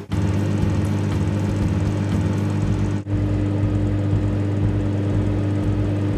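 Microwave oven running with a steady low hum, which drops out briefly about three seconds in.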